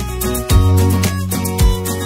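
Background music with a steady beat, sustained chords and a strong bass line.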